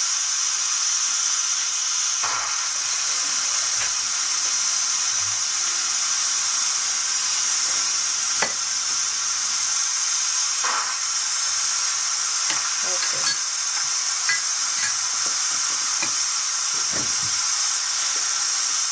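A pot of stewed beans sizzling steadily on the stove, with a metal spoon stirring and now and then clicking against the pot. Around the middle, water is poured into the pot.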